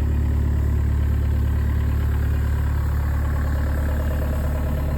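2005 John Deere 50D compact excavator's diesel engine idling steadily.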